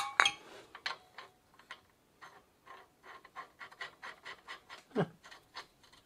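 Crank puller being screwed by hand into the rusty, freshly oiled extractor threads of a bicycle crank arm: a string of soft scraping ticks, a few a second, as the threads turn. A metal clink at the very start and a short falling squeak about five seconds in.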